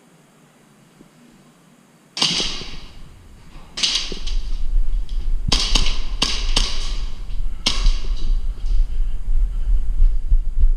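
Airsoft gunfire: about seven sharp cracks starting about two seconds in, some in quick succession, over a low rumble.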